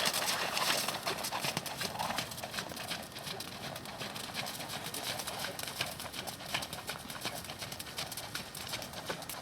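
Hoofbeats of a Thoroughbred horse being ridden in the arena: a steady run of clip-clops, a little louder in the first couple of seconds.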